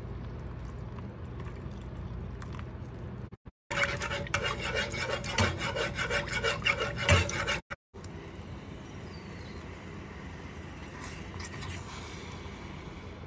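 Metal spoon scraping and stirring around a coated saucepan of thickening cocoa-and-coffee paste: a run of quick rasping scrapes lasting about four seconds in the middle, with quieter steady noise before and after.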